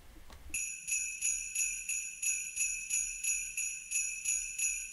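Sleigh bells jingling in a steady shaking rhythm, about three shakes a second, starting about half a second in.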